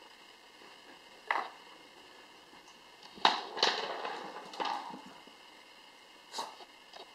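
Corgi puppy going after an ice cube: a few sharp knocks and clatters with scuffling in between, one about a second in, a louder cluster about three seconds in, and another near the end.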